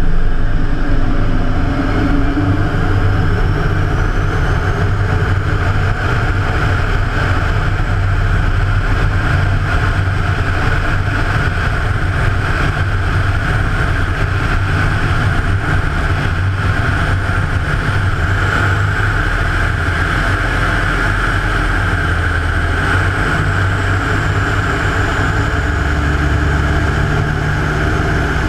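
Rotec R3600 nine-cylinder radial engine and propeller of a Hatz biplane running steadily in flight, under a constant rush of airflow.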